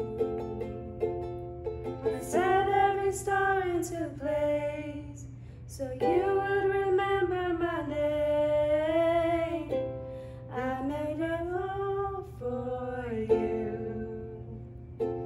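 Women singing a worship song to a plucked ukulele accompaniment; the ukulele plays alone for the first two seconds before the voices come in, and the sung phrases pause briefly twice.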